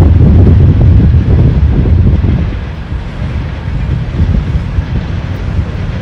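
Wind buffeting the microphone: a loud, gusty low rumble that eases off about halfway through.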